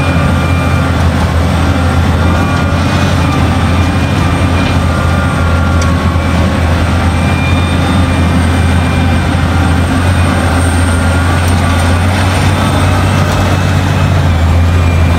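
Liebherr 984 crawler excavator working: its diesel engine and hydraulics run under load with a steady, loud low drone as it digs, swings and dumps a bucket of earth into a dump truck.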